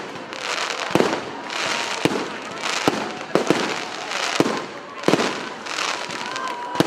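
Aerial fireworks display: shells bursting with sharp bangs about once a second, with a crackling hiss between them.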